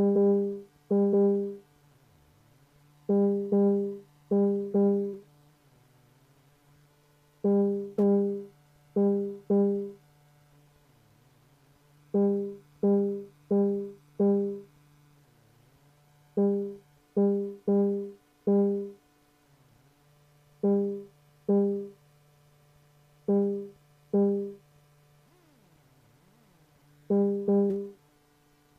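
Moog Mother-32 synthesizer run through a 2hp Delay Eurorack module: short notes at one pitch in clusters of two to four, each fading quickly, with a faint steady hum between the clusters.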